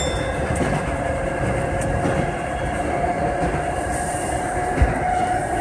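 Electric commuter train running through a tunnel, heard from inside the front cab: a steady rumble with a humming tone, and a single thump about five seconds in.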